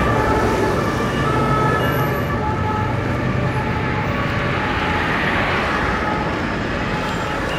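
Steady city road traffic noise, with short steady tones at several pitches sounding through it.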